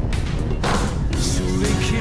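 Background music with drums and a wavering melodic line.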